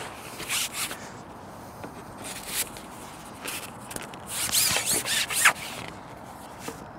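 Carbon fishing pole being pushed out hand over hand, sliding and rubbing in a run of short scrapes. The scrapes bunch together about two-thirds of the way through, over a steady low hiss.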